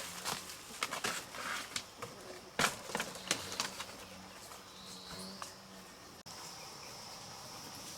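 Scattered sharp clicks and knocks for the first few seconds, then a steady high-pitched insect drone that holds to the end.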